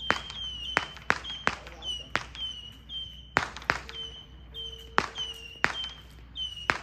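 Fireworks cake firing whistling shots in quick succession, about two a second: each a short high whistle and a sharp bang.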